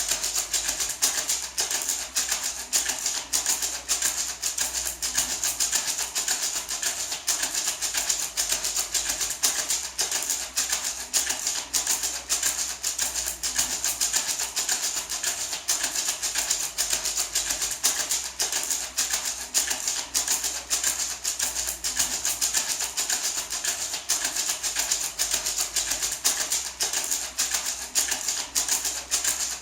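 Small painted gourd maraca shaken steadily in a continuous even rhythm, its seeds rattling with a bright, hissy swish on each stroke.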